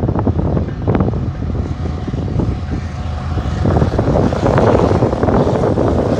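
A train running past: a loud steady rumble with sharp knocks near the start and about a second in, growing louder about two-thirds of the way through, with wind on the microphone.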